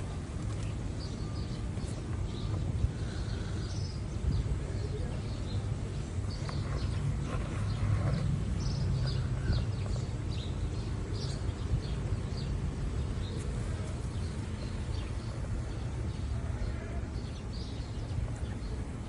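Small birds chirping in short, scattered calls throughout, over a steady low rumble.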